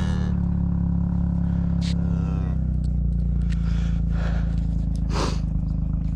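Vehicle engine running steadily at idle, a constant low hum.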